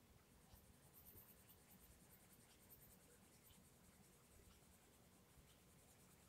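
Faint scratching of a Castle Arts Gold coloured pencil on paper in many short, light strokes as it shades cloud colour into a colouring-book page.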